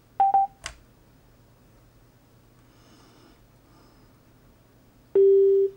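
Electronic status beeps from a Gravastar Crazy Cool Bluetooth speaker while it is being switched on and paired: two short high beeps and a sharp click near the start, then one longer, lower beep about five seconds in.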